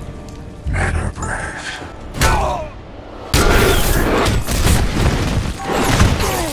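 Film fight sound effects: heavy booms, slams and crashes that hit suddenly about a second in, around two seconds in and again just past three seconds, as a gas grenade blasts and a body smashes through a wall, with short grunts among them.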